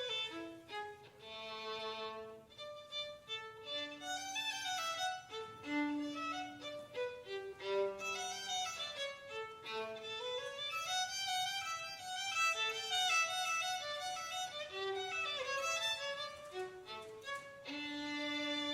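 Violin playing a melody of many changing notes, with a few slides between notes.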